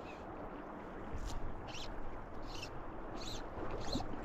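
River water flowing steadily, with about five short, high-pitched chirps spread through the sound.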